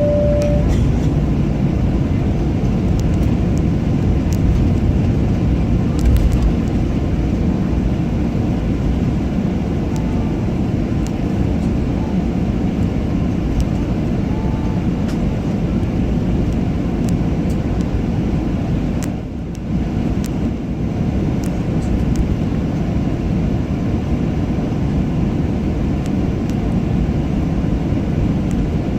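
Steady low rumble of an airliner's jet engines and air flow, heard from inside the passenger cabin, with a short single tone right at the start.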